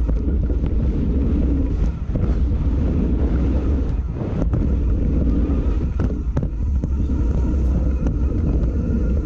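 Heavy wind rumble on a handlebar-mounted GoPro Hero 6's microphone as a mountain bike rides fast down a dirt trail. A few sharp knocks sound through it as the bike jolts over bumps.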